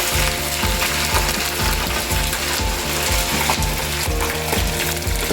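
Fries deep-frying in a pan of hot oil, a steady crackling sizzle, over a low beat that repeats at an even pace.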